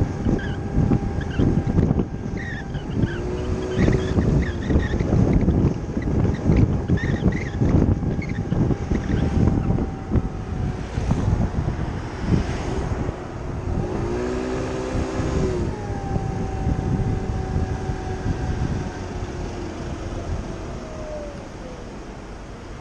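Kymco Agility City 50cc scooter engine running under way, with wind buffeting the chest-mounted microphone. The engine note rises briefly twice, then its whine drops away and the noise eases near the end as the scooter slows.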